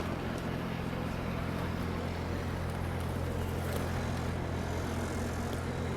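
City street traffic: a steady low engine drone from idling and passing vehicles over a constant wash of street noise.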